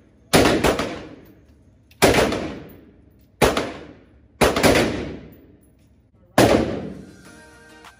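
Rifle shots from an AR-style rifle at an indoor range, about seven in all, fired as pairs and single shots a second or so apart, each followed by a long echo off the range walls. Faint music comes in near the end.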